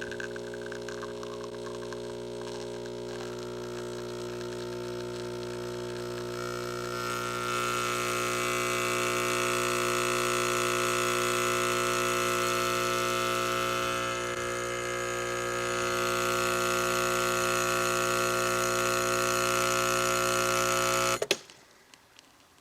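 Breville Barista Express espresso machine's vibratory pump humming steadily while pulling a shot, growing louder with a hiss about seven seconds in as it builds to full pressure, then cutting off suddenly near the end when the shot is stopped.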